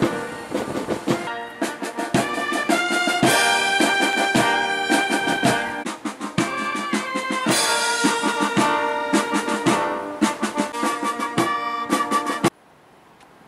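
Military brass band playing a tune, brass melody over a steady drum beat. The music cuts off suddenly near the end, leaving only faint background noise.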